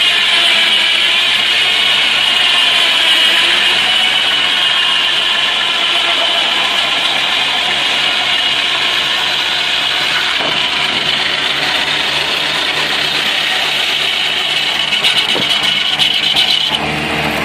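Engine-driven sawmill machinery running steadily. The sound shifts abruptly near the end.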